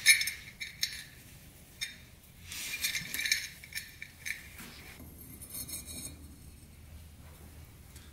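Scattered light metallic clinks and a couple of short scraping rustles from the engine parts being handled as the cylinder is worked down over the piston of a Yamaha YFZ450 engine.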